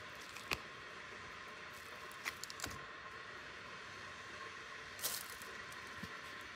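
Faint hiss with a few soft clicks and crinkles from an aluminium foil takeout tray and its paper-lined lid being handled and peeled off. A short rustle comes about five seconds in.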